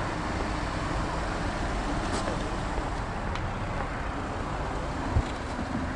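Honda Accord driving past at low speed, its tyres and engine making a steady noise, with a short low thump about five seconds in.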